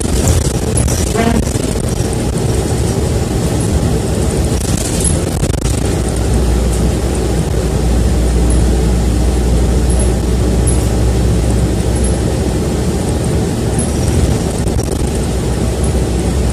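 City bus in motion heard from inside the cabin: a steady engine and road drone with light rattling. The low engine note grows stronger for several seconds in the middle.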